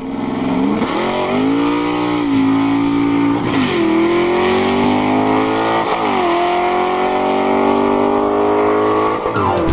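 A car engine accelerating hard through the gears: its pitch climbs, drops sharply at each upshift, twice plainly, and falls away just before the end.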